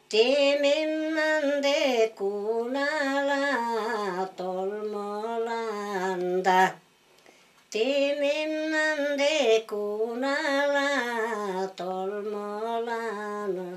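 A woman singing an unaccompanied song, one voice drawing out long, wavering notes in two phrases with a pause of about a second between them.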